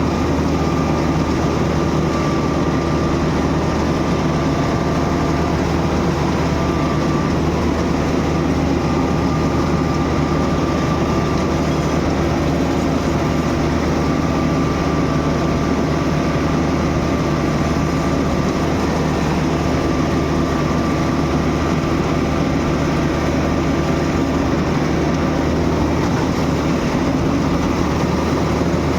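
Gam combine harvester running steadily under load while cutting paddy: a continuous engine drone with a faint high whine that comes and goes.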